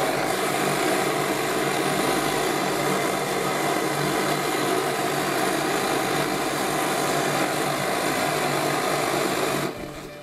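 Pre-war Hähnel No. 43 gasoline blowtorch burning, a steady rushing flame noise as it heats a soldering iron red-hot. The noise cuts off abruptly near the end.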